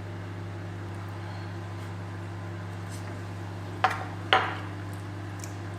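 Two sharp clinks of cutlery against a dish or meal tray, about half a second apart, over a steady low hum.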